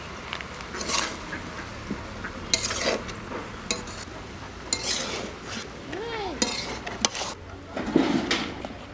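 Metal spatula scraping and clanking against a metal kadai as spice-coated mixed vegetables are stirred, in irregular scrapes and knocks.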